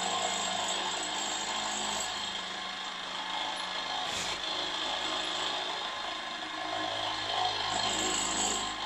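Milling machine running, its end mill cutting a small square steam pocket into a metal model cylinder block: a steady motor hum under the cutting noise, with one sharp click about four seconds in.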